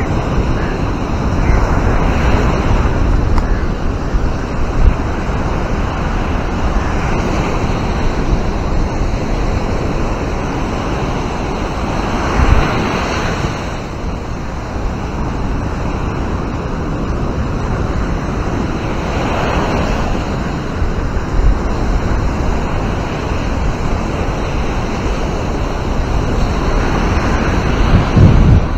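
Surf breaking on a sandy beach, a steady wash that swells louder every five to seven seconds as waves come in, over a low rumble of wind on the microphone.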